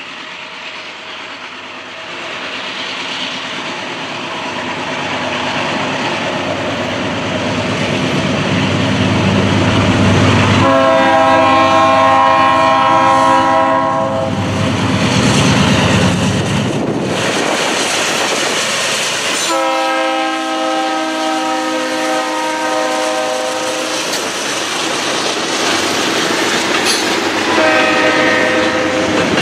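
A Pan Am Railways GE B40-8 diesel locomotive approaches with a growing engine rumble and sounds its multi-chime air horn. There is a blast of about three seconds around 11 s, a longer blast of about four and a half seconds around 20 s, and a third blast starts near the end.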